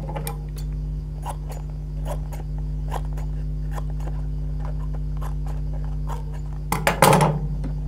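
Scissors snipping around the edge of a fabric cone: a string of short, sharp clicks over a steady low hum, with a louder rustling burst near the end.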